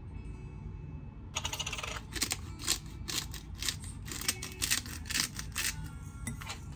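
Black pepper being added to a bowl of mince: a brief hiss about a second and a half in, then a run of short crunchy bursts, about three a second, that stop near the end.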